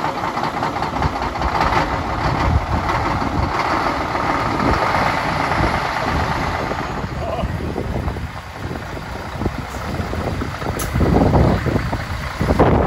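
A 2002 Scania R124 470 hooklift truck's 12-litre straight-six diesel running at low revs as the truck creeps forward, getting louder near the end as it comes closer.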